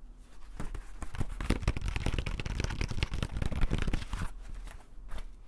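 Fingertips rapidly tapping and scratching on a woven cone-shaped basket held close to the microphone: a dense run of crisp clicks that starts about half a second in and stops about four seconds in.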